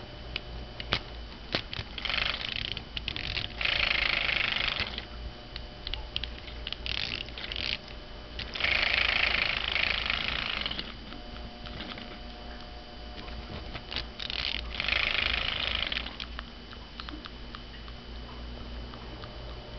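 A plush airplane trembler toy buzzing and shaking in several bursts of a few seconds each, set going by a cocker spaniel pulling at its ring with her mouth. Scattered small clicks come between the bursts.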